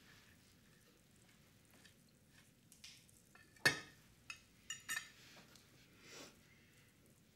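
Cutlery clinking and scraping on dinner plates in a few scattered, short clicks, the loudest about three and a half seconds in, over quiet room tone.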